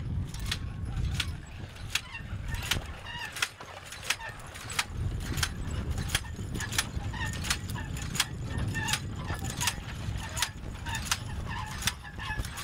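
Horse-drawn two-row corn planter clicking and rattling as a draft horse team pulls it, with harness hardware jingling, over a low rumble. The sharp clicks come irregularly, about two or three a second.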